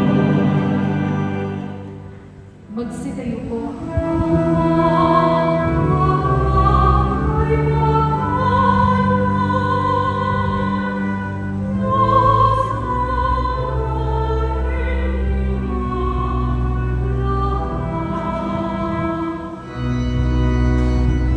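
A woman sings a slow solo over instrumental accompaniment, holding long notes with vibrato above steady low bass notes. The music dips and breaks off about two to three seconds in before the singing begins.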